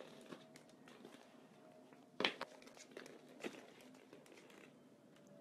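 A fox terrier moving about among hollow plastic ball-pit balls on a wooden floor: scattered light clicks and knocks, the sharpest about two seconds in and a few smaller ones soon after, over a faint steady hum.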